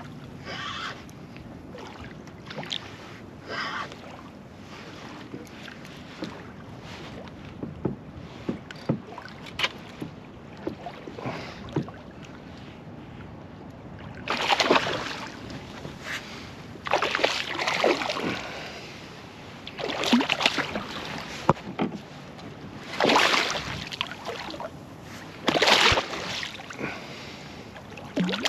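A hooked bluefish splashing at the surface close to a canoe: a run of loud splashes, each about a second long, starting about halfway through, after a quieter stretch of water lapping with small ticks.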